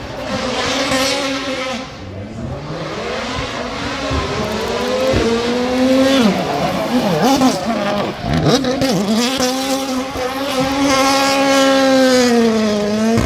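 Race car engine at high revs, its pitch swooping down and back up several times in the middle as the throttle is lifted and reapplied, then held high and steady before falling near the end.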